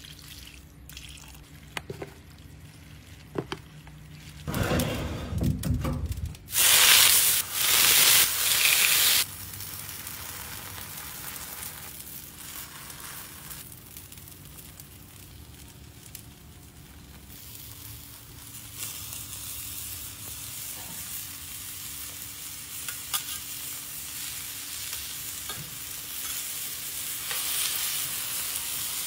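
Tortillas and meat sizzling on a hot flat-top griddle over charcoal. There is a loud burst of sizzling a few seconds in, then a steadier sizzle with occasional clicks of metal spatulas.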